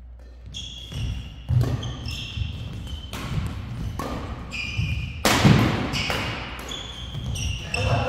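Badminton doubles rally: racket strikes on the shuttlecock and quick footsteps, with court shoes squeaking on the floor. The loudest hit comes about five and a half seconds in.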